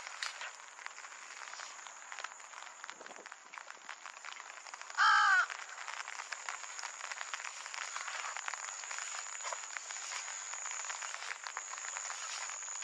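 Steady rain pattering, with one loud, harsh bird call lasting about half a second, five seconds in.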